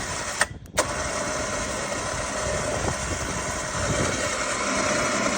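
CFMoto engine running steadily, with a short break about half a second in and a slight rise in level toward the end.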